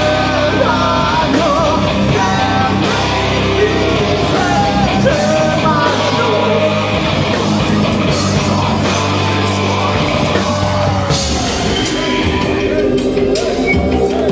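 Live rock band playing loud, with bass guitar, drums and keyboard, and a singer's voice over it through roughly the first half.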